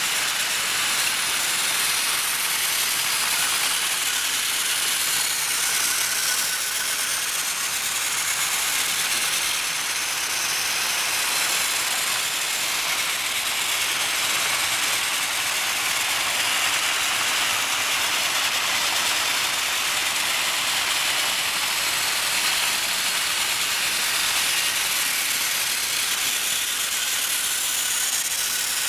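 Many battery-powered plastic toy trains running together on plastic track: a steady, high whirring and rattling of small motors, gears and wheels.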